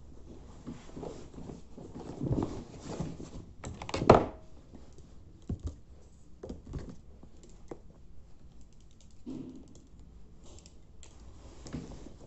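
Packing a backpack by hand: fabric rustling with scattered light knocks and clicks as a lab coat and a stethoscope are pushed into the bag, with one sharper knock about four seconds in.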